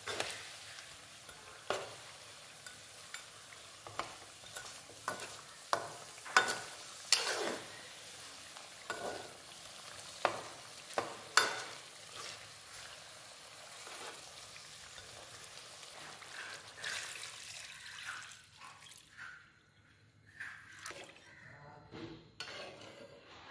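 Mutton chops sizzling in hot coconut oil in a pan while a spatula stirs them, scraping and knocking against the pan many times. About three-quarters of the way through the sizzle dies away, as the pan fills with water.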